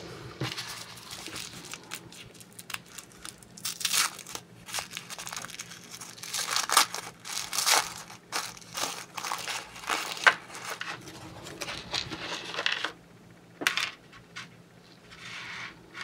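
Tissue paper crinkling and rustling on and off as it is unwrapped by hand, quieter in the last few seconds.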